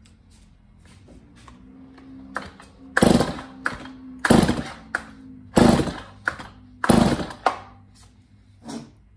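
Stihl MS290 chainsaw's recoil starter pulled four times, about 1.3 seconds apart, cranking the engine for a compression test with a compression tester screwed into the spark plug hole. Light clicks of the tester and hose being handled come before the pulls.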